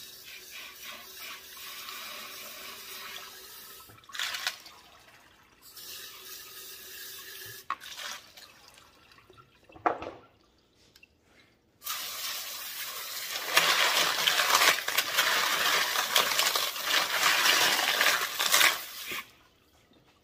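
Water from a tap running in stretches as tumbled agates are rinsed after a borax wash cycle. The flow gets louder and steadier about twelve seconds in and stops near the end, with a couple of short knocks between the stretches.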